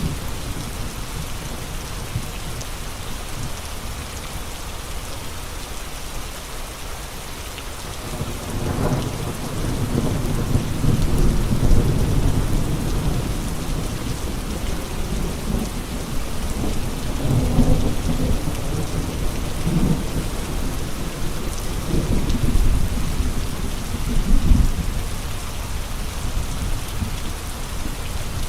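Steady heavy rain with gusting wind. From about eight seconds in, deep rumbling swells rise and fall several times over the rain.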